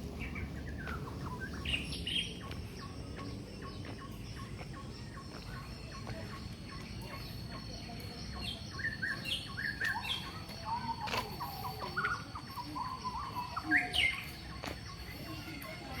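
Several birds chirping and calling, with short rapid runs of notes and scattered high chirps, the loudest about three-quarters of the way through. A thin, steady high tone runs beneath from about two seconds in, over a low background rumble.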